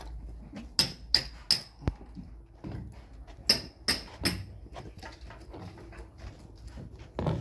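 Sharp knocks of a tool striking a hard surface: three quick strikes about a second in, and three more about three and a half seconds in.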